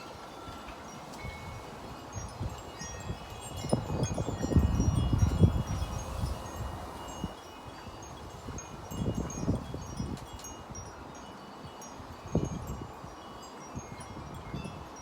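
Metal wind chimes ringing with scattered high tones, over gusts of wind buffeting the microphone; the strongest gust comes a few seconds in and lasts about three seconds, with shorter gusts later.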